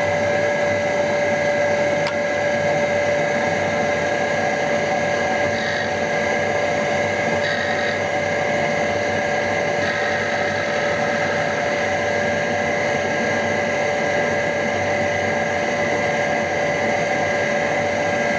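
Surface grinder running with a steady whine while its wheel regrinds the worn end of an end mill's cutting edges. A few times, briefly, a higher grinding hiss joins in as the wheel touches the edge.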